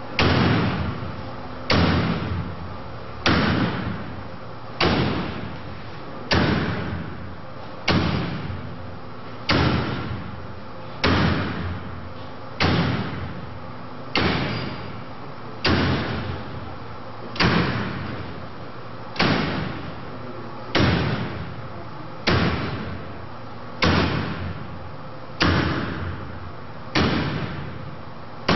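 An axe striking woven-wire metal drapery again and again, about eighteen blows one every second and a half. Each blow is a sharp impact followed by a short echoing decay.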